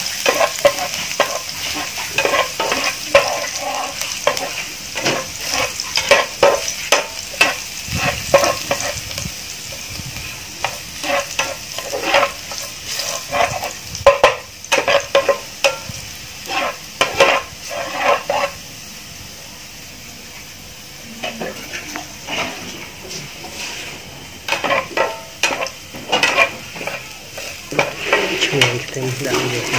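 Chopped garlic sizzling in hot oil in a nonstick frying pan, stirred with a plastic spatula that scrapes and taps against the pan again and again. The stirring stops for a few seconds past the middle, leaving only the quieter sizzle, then starts again.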